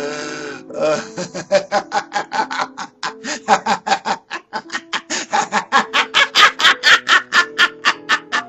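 An old man laughing maniacally in rapid bursts, about five a second, growing louder toward the end, over sinister background music with held notes. It opens with a short hissing rush of breath.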